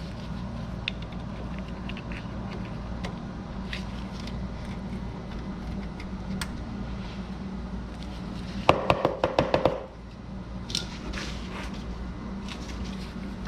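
Hand tools working a rusted suspension fastener: scattered light metal clicks, then about nine seconds in a quick run of roughly eight sharp metallic knocks with a ringing tone, lasting about a second.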